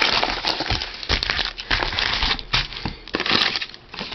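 Crinkling, crackling packaging of a football-card repack box being opened and handled, with many quick clicks and rustles.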